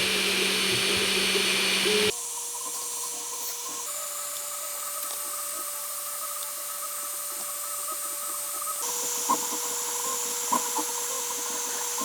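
3D printer running mid-print: the steady whine of its stepper motors over cooling-fan hiss. The pitch jumps suddenly a few times, and a few light clicks come near the end.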